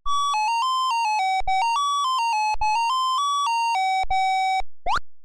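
Short electronic jingle: a simple melody of single beeping notes stepping up and down, followed near the end by two quick rising chirps.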